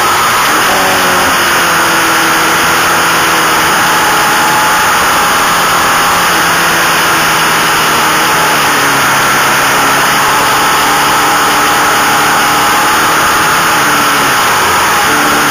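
Racing motorcycle engine at speed, heard onboard over heavy wind rush. Its pitch holds steady, drops about halfway through and climbs again near the end.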